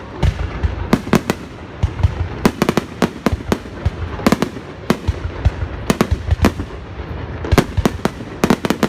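Fireworks exploding: many sharp bangs in irregular quick clusters over a continuous low rumble of more distant bursts.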